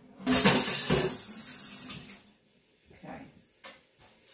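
A kitchen tap runs in a steady rush for under two seconds and is then shut off, leaving a few faint knocks.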